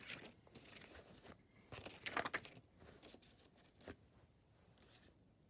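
Faint handling noises of a Blu-ray case and its packaging: scattered rustling with a few light clicks, the loudest rustle about two seconds in.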